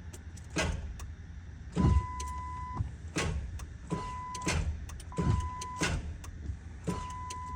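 Ford 5.4 Triton V8 failing to start: several sharp clicks about a second apart as the key is turned, with no cranking. A steady high warning beep from the truck sounds on and off between the clicks. The owner traced the no-start to a seized AC compressor clutch that stopped the belt from turning.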